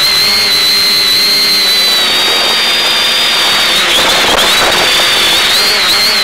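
Quadcopter's electric motors and propellers whining, a high pitch that wavers as the motor speeds change, over a steady hiss.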